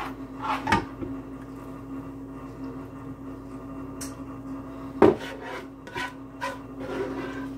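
A serving spoon scraping and knocking against a pot and a ceramic baking dish as ground-meat sauce is spooned over pasta, with the loudest knock about five seconds in. A steady low hum runs underneath.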